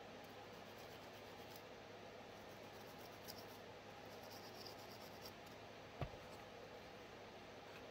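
Faint rubbing and scratching of the Glock pistol's frame being wiped and worked over while it is cleaned, with a few light clicks and one sharp tap about six seconds in.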